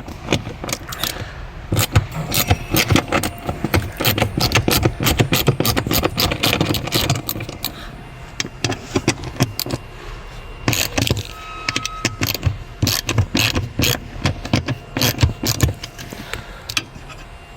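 Metal hand tools clinking and rattling against bolts and the car body: a rapid, irregular run of clicks and knocks as bolts are undone.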